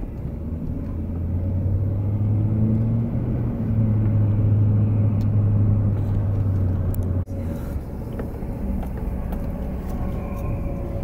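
Car engine and road noise heard from inside the cabin while driving. A steady low drone builds over the first couple of seconds and breaks off abruptly about seven seconds in, after which a lower, even rumble carries on.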